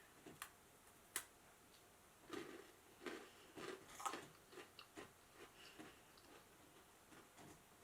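A crisp meringue cookie being bitten and chewed: a run of small, irregular crunches, after two sharp clicks near the start.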